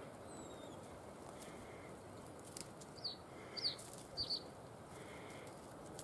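Small songbirds calling: three short, high chirps, each sliding down in pitch, come in quick succession past the middle, after a faint thin whistle near the start, over a faint steady outdoor hiss.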